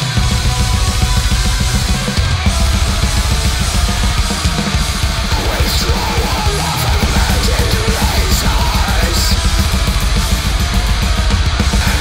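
Heavy metal music: distorted guitar and a drum kit played loud and dense, with rapid low drum hits.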